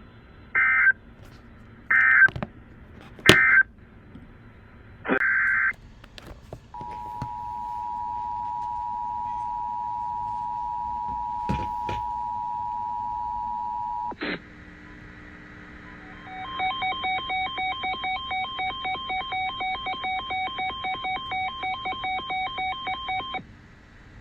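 Emergency Alert System tones: four short buzzy data bursts of the digital alert header in the first six seconds, then the steady two-tone EAS attention signal for about seven seconds. After a click comes a rapid beeping of several mixed tones, about four a second, for about seven seconds.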